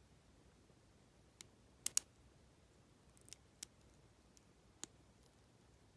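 Lock pick clicking against the pins and warding inside an Abus T65AL/40 brass padlock: a handful of sharp metallic clicks, two loudest close together about two seconds in.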